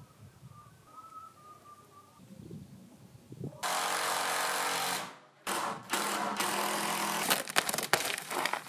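A power tool runs loudly in two bursts after a quiet start: the first about a second and a half long, the second longer, with sharp clicks through it.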